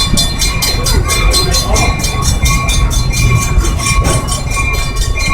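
Excursion train running, heard from aboard: a steady low rumble with an even, quick clatter about five times a second and a thin steady high tone over it.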